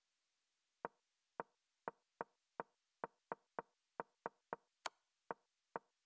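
Online chess board's piece-move sound effect: about fourteen short wooden clicks, roughly two a second, each one a move being played as the game is stepped through.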